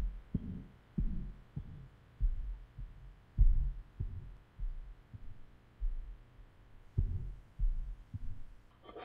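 Heartbeat sound effect: a slow, uneven run of low thumps.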